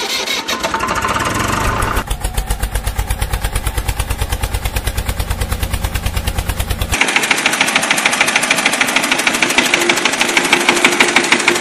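Tractor engine running with a rapid, even putter. About seven seconds in it shifts to a higher, brighter note with less low rumble.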